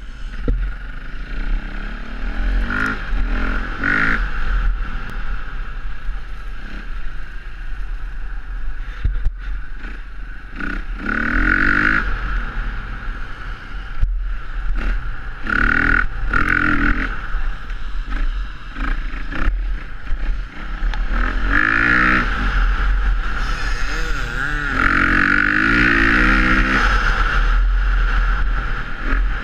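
Off-road motorcycle engine revving up and easing off again and again under the rider's throttle, with strong pulls about three, eleven, sixteen and twenty-two seconds in and a longer one near the end. The sound is heard from the rider's own bike through a helmet-mounted camera.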